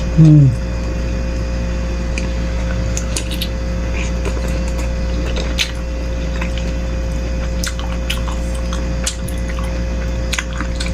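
Close-miked wet chewing and slurping of meatball soup with rice, with small clicks of a spoon against the bowl, over a steady hum. Just after the start comes one brief loud voiced sound that falls in pitch.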